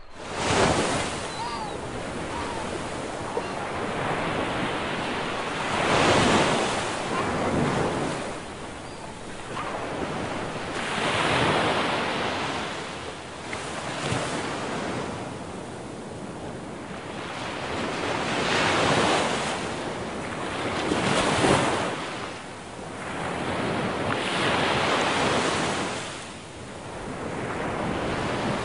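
Ocean surf: waves breaking and washing ashore in swelling surges every few seconds, with wind buffeting the microphone.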